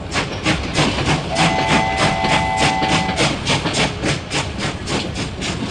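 Train running with a rapid, even beat of about four or five strokes a second. A horn sounds a steady chord for about two seconds starting a little over a second in.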